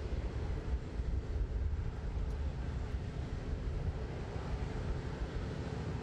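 Steady low rumble of aircraft and ground-equipment noise on an airfield apron, with wind buffeting the microphone.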